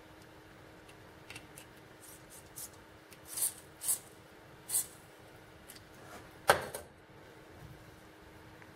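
Several short hisses of an aerosol spray can firing through its straw nozzle onto a rusted, seized bolt, the main ones coming about a second apart. About two-thirds of the way in comes a single sharp knock, the loudest sound.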